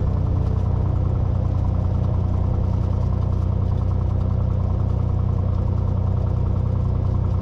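Cessna 182T's Lycoming IO-540 six-cylinder engine and propeller running steadily at high power during the takeoff roll, heard from inside the cabin.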